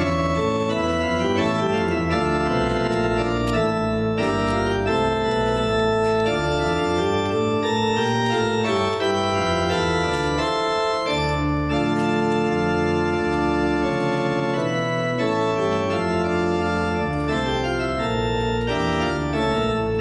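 Organ music: slow, sustained chords that change every second or so over a bass line that moves up and down in steps.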